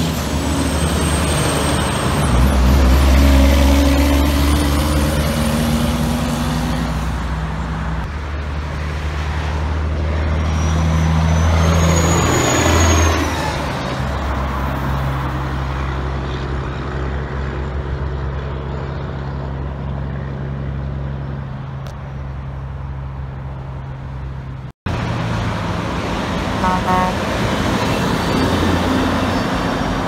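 Heavy diesel trucks pulling through an intersection and passing close by, engines loud and deep. In the middle, a high turbocharger whistle rises and then falls away as one truck pulls off. About 25 s in, the sound cuts out for an instant before another truck is heard.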